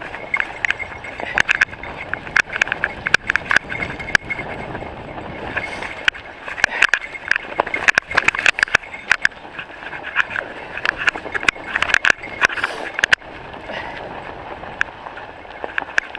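Mountain bike riding down a snowy singletrack: a steady rush of tyre and drivetrain noise, broken throughout by frequent sharp, irregular rattles and clicks as the bike jolts over bumps.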